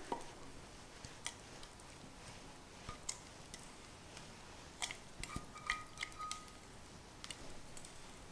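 Faint scattered clicks and taps from a silicone spatula scraping thick custard cream out of an enamel saucepan into a glass bowl, with soft dollops dropping and a brief thin squeak a little past halfway.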